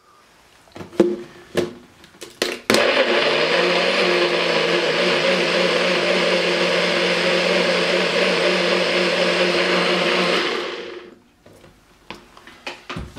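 NutriBullet personal blender motor running steadily for about eight seconds, pureeing avocado salsa, then winding down as the cup is released. A few plastic clicks come first as the cup is seated and pressed onto the base.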